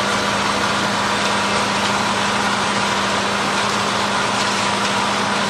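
Engine of a heavy road-construction machine running steadily: a constant low hum under an even mechanical noise, with no change in speed.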